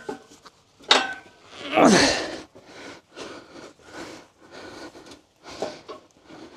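A person straining with effort: a knock about a second in, then a loud grunt and a run of short, hard breaths.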